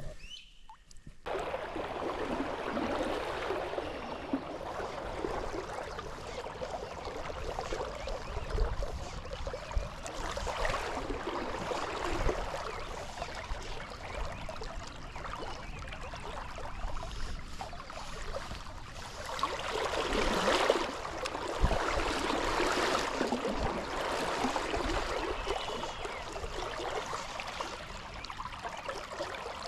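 River water running and gurgling over a trout stream, cutting in suddenly about a second in and then swelling and easing in waves.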